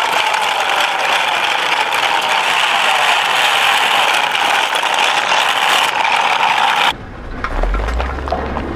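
Plastic wheels of a toy garbage truck rolling and grinding over rough concrete close to the microphone: a loud, steady rattling scrape. It stops abruptly about seven seconds in and gives way to a low rumble with a few sharp cracks.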